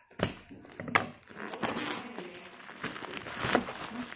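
Plastic courier mailer being torn open and rustled, then the crinkle of bubble wrap as the wrapped parcel is pulled out. Sharp crackles come just after the start and again about a second in, followed by steady crinkling.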